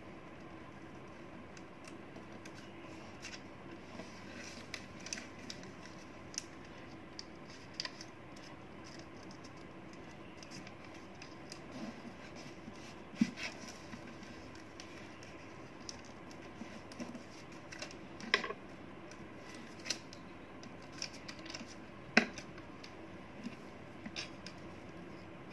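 Origami paper being folded and creased by hand: scattered soft crinkles and taps, with a few sharper ones in the second half, over a faint steady hum.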